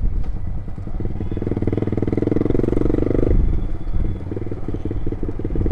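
Loud-exhausted motorcycle being ridden, its exhaust pulsing rapidly and building under throttle, then easing off suddenly a little over three seconds in and running on more gently.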